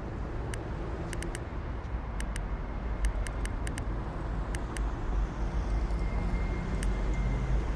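Steady road traffic noise, a low rumble of passing vehicles, with scattered short clicks.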